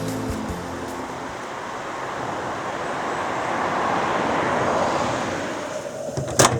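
A road vehicle passing by: a rush of tyre and engine noise that swells to a peak about four seconds in and fades away, with a single sharp knock near the end.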